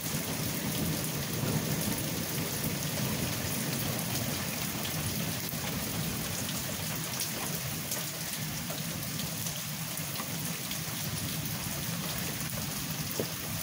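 Steady rain falling, with many small drop ticks, over a low rumble of thunder that is strongest in the first half.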